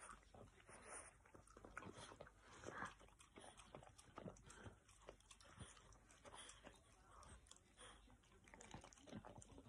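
French bulldog puppy licking and nibbling at an ice cream bar on a stick: faint, irregular wet smacking and licking clicks.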